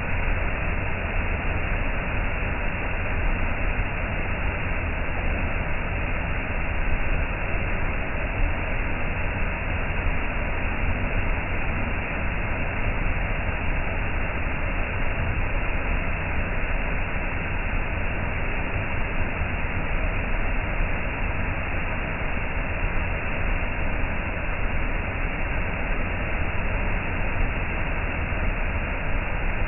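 Waterfall pouring over a sandstone ledge onto a pebble beach, with a smaller cascade beside it: a steady, unbroken rush of falling and running water.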